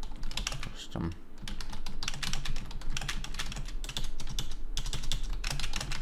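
Typing on a computer keyboard: a fast, continuous run of keystroke clicks.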